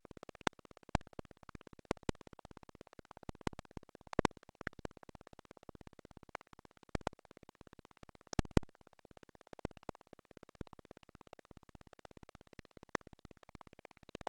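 Irregular sharp clicks of computer keys and mouse buttons, a few louder ones among them, over a steady buzzy background.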